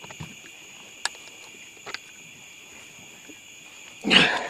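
Steady high chirring of night insects, with a couple of faint knocks. Near the end comes a brief loud rush of handling noise as the big catfish is hoisted up.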